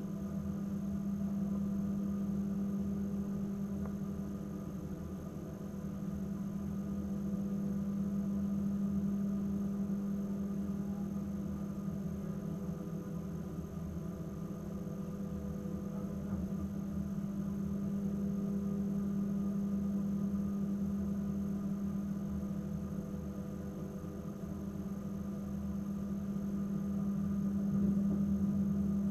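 Steady drone of a ship's engines and deck machinery, a low hum with fainter tones above it that slowly swells and eases, growing slightly louder near the end as the trawl net starts to move.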